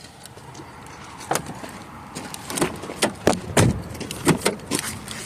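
Car seatbelt being handled: a run of about ten sharp clicks and knocks as the metal latch plate clacks against the buckle and trim. The loudest knock comes about three and a half seconds in.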